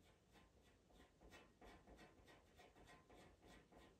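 Pastel pencil scratching on PastelMat paper in short, quick strokes, about three or four a second, faint.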